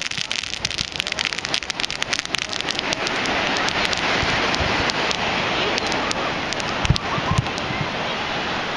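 Fireworks crackling in rapid sharp snaps for about three seconds, then giving way to a dense, steady rushing hiss with a low thump about seven seconds in.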